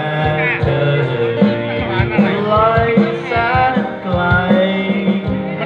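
Live music: a man singing a melodic line over a strummed acoustic guitar, with drum hits keeping a steady beat.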